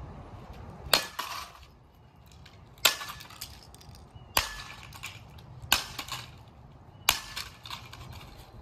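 A bat smashing the plastic remains of an RC car against a concrete sidewalk: five hard hits, roughly one every one and a half seconds, each followed by smaller clatters of broken pieces.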